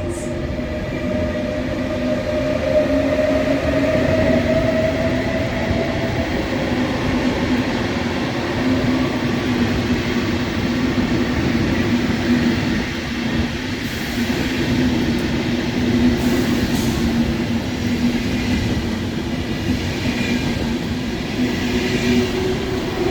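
Electric passenger train pulling out of a station, its traction motors giving a steady whine that rises slightly in pitch over the first few seconds over the running noise of the train.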